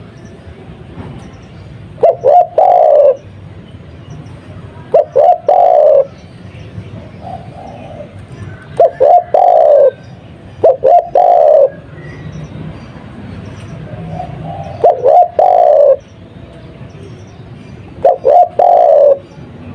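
Spotted dove (tekukur) of the Madura 'kuk 2' type cooing six times at even intervals, each call two or three quick short notes ending in one longer coo, over a steady low background hum.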